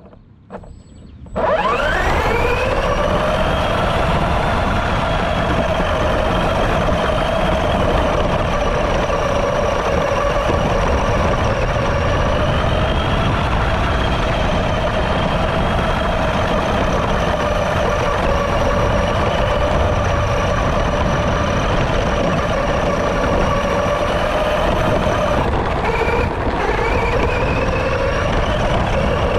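Battery-electric FTX Carnage RC monster truck's motor and drivetrain whining as it drives, recorded from its roof, over the rumble of wind and the tyres on grass. The whine starts about a second and a half in, rising in pitch as the truck speeds up, then holds steady, with a short dip and change in pitch near the end.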